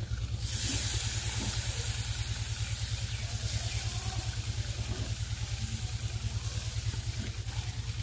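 Marinated fish pieces sizzling on a grill over hot charcoal in a clay oven, the sizzle starting just after they are laid down, over a low, rapidly pulsing hum.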